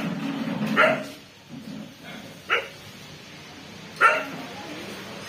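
A dog barking: four short single barks, irregularly spaced about one to one and a half seconds apart.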